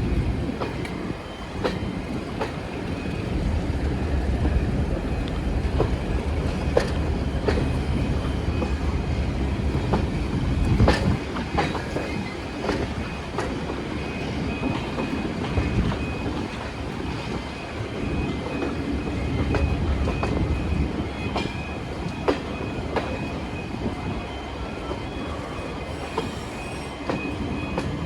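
Diesel-hauled train running past: a steady low engine rumble, wheels clicking over rail joints with one loud knock about eleven seconds in, and a thin, steady wheel squeal that sets in about halfway through.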